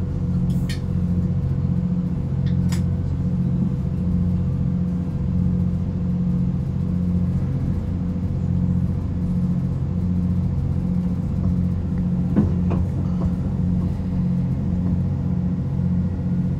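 Inside a Chiltern Railways diesel multiple unit running at speed: a steady low drone from the underfloor diesel engine and wheels on the rails, with a slow regular throb. A few short sharp clicks or rattles come through, one about half a second in, one near three seconds and one about twelve seconds in.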